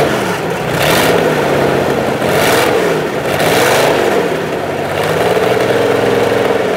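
1951 Scripps 302 V12 marine engine (894 cubic inches, unrestored) running just after start-up, its throttle blipped up and down several times before it settles into a steadier run near the end. Its open exhaust pipe sprays cooling water.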